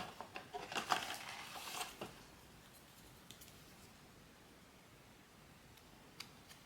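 Blind-box packaging being handled: about two seconds of crinkling and rustling with sharp clicks, then a few faint ticks.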